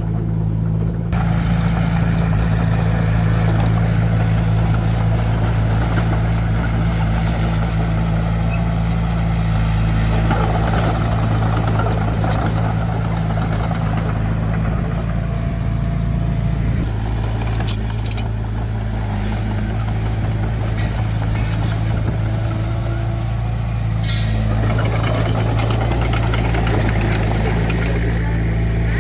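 Heavy vehicle diesel engine running steadily at a low, even pitch.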